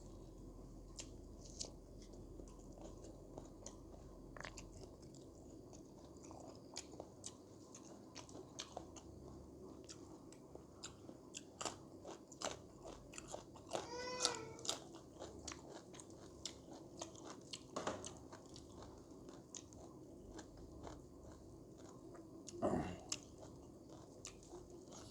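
Close-up chewing and crunching of pork curry with bamboo shoots: wet mouth clicks and crunches, irregular, all through. A short pitched vocal sound comes about halfway through, and a louder single noise near the end.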